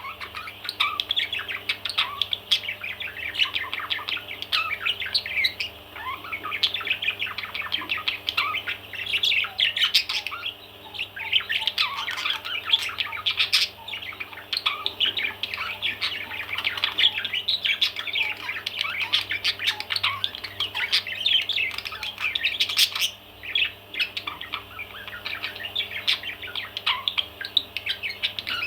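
Parrot chattering: a continuous stream of rapid chirps and squawks with no break.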